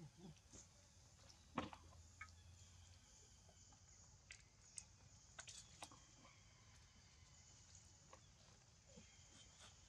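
Near silence, with a few faint, scattered clicks and ticks; the clearest comes about a second and a half in.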